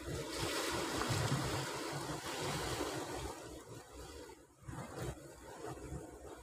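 Wind gusting on the microphone over the wash of surf, with a brief lull about four and a half seconds in.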